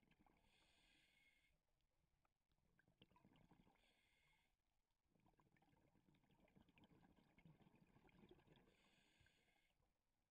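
Faint scuba regulator breathing heard through an underwater camera housing: a hissing inhale lasting about a second, three times, with rumbling exhaled bubbles between the breaths.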